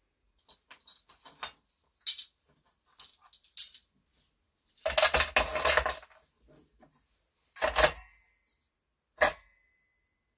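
Scrap aluminium pieces, heatsinks and brackets, clattering and clinking against each other as they are piled into a plastic bowl on a kitchen scale. Scattered small clicks at first, the loudest jumble about five seconds in, another burst just before eight seconds, and a single sharp clink a little after nine seconds that rings briefly.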